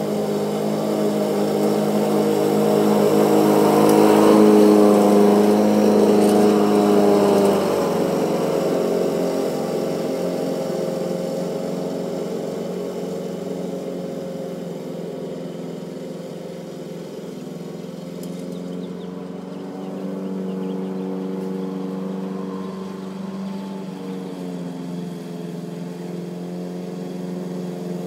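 Lawn-Boy self-propelled mower's OMC two-stroke engine running steadily while mowing. It is loudest a few seconds in, fades as the mower moves away, and grows louder again as it comes back.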